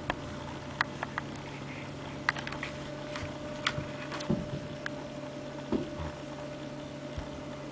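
Steady low electrical hum with scattered light clicks and taps.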